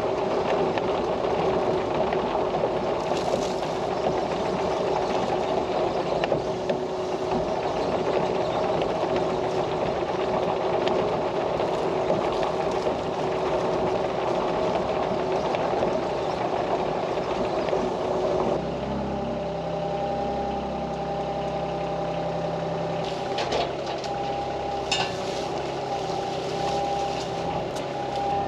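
Sany mini excavator's diesel engine running steadily while it works, then dropping suddenly to a lower idle about two-thirds of the way in, with a few light knocks near the end.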